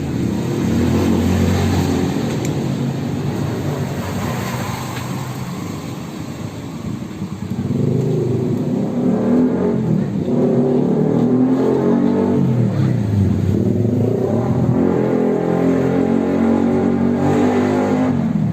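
A motorcycle engine running and revving, its pitch rising and falling.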